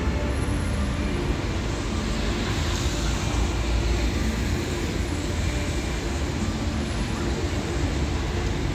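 Steady city traffic noise on wet streets, with a deep, continuous rumble.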